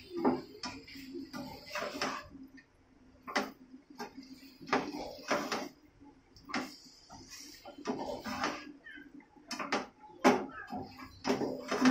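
Black plastic spatula scraping and knocking against a nonstick pan as raw chicken pieces are stirred through a thick masala, in irregular strokes, with a faint steady hum underneath.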